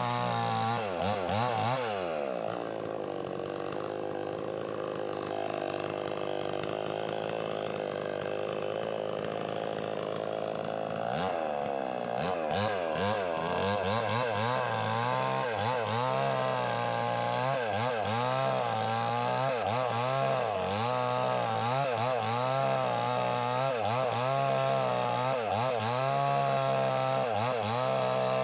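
Small two-stroke chainsaw engine running. It revs up and down at first, holds a steady high speed for several seconds, then surges and drops in speed about once a second for the rest.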